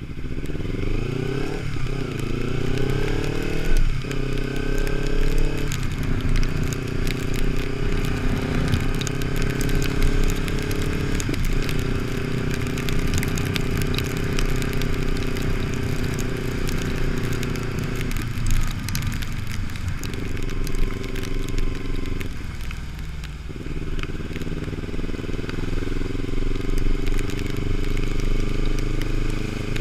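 Kawasaki Ninja 300's parallel-twin engine accelerating and shifting up through the gears, its pitch climbing and then dropping at each of several upshifts, easing off around twenty seconds in and pulling again near the end. Under it is a steady hiss of wind and wet road.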